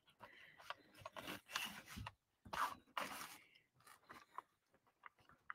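Clear cellophane treat bag crinkling as it is handled, in short irregular bursts, followed by a few faint taps and ticks.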